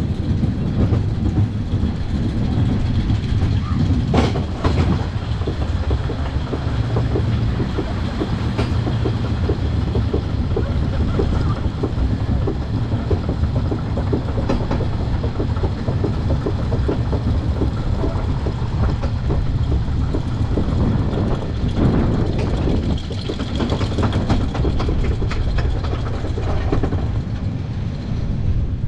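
Portable steel roller coaster train rolling along its track: a steady low rumble full of rapid clacking, with louder rattles about four seconds in and again around twenty-two seconds.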